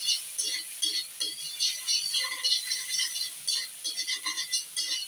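Cubed chicken thigh being stirred and sautéed in a metal frying pan: quick, irregular clinks and rattles of metal on metal, several a second.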